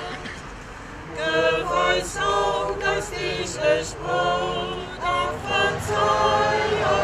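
Small group of mixed male and female voices singing unaccompanied, with a short break about a second in before the singing picks up again in held notes.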